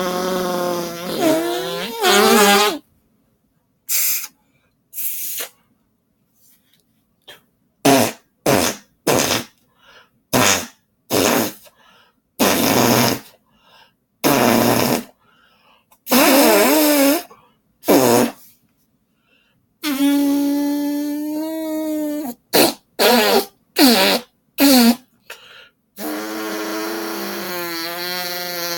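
A person making imitation fart noises: a long run of buzzing blasts with a wavering pitch. Several drawn-out ones are spread among many short, quick ones.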